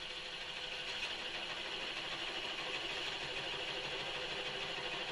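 A 1.5-inch Forstner bit boring into a maple blank spinning on a wood lathe at about 400 RPM: a steady cutting hiss over the hum of the lathe.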